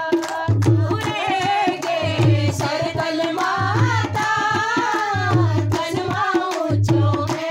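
Women singing a Hindu devotional bhajan to Sarthal Mata, with hand claps. A drum beats a steady low pulse about once a second.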